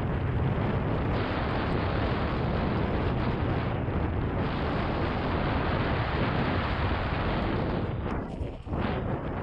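Steady wind buffeting on a GoPro Hero 7 Black's microphone during a mountain-bike ride, a dense low rumble that dips briefly about eight and a half seconds in.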